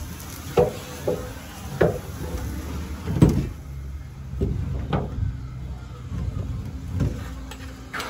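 Irregular knocks and clunks on the wooden joists of a roof cavity, roughly one a second with the loudest a little past three seconds in, over the steady low hum of an industrial vacuum cleaner running.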